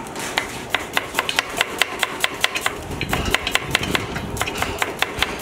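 Knife slicing peeled onions against a wooden board, the blade knocking on the wood in a quick, even rhythm of about four strokes a second.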